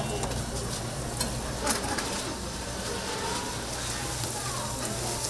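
Dough deep-frying in hot oil, sizzling steadily, with two sharp clicks about a second and a half in.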